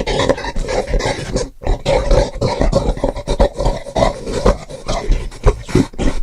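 A person's voice making rough caveman-style grunts and growls in a rapid, continuous stream, with a brief pause about one and a half seconds in.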